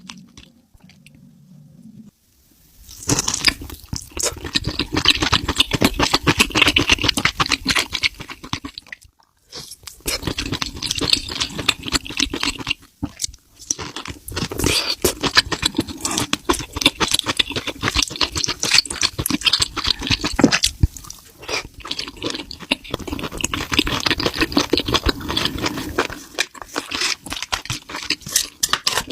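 Close-miked chewing and crunching of food: dense crackly bites in several stretches, with short pauses between them.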